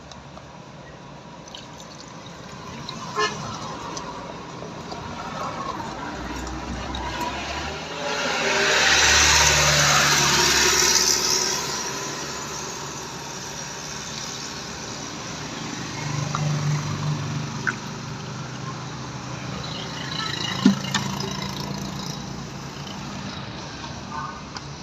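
Acid (battery electrolyte) water being poured into the open cells of a lead-acid car battery to top up the empty cells, over steady outdoor background noise. A louder rushing swell rises and falls about eight to eleven seconds in.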